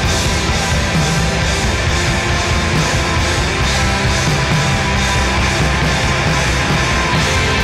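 Instrumental post-rock: a full band with electric guitars playing loud and dense over bass and drums.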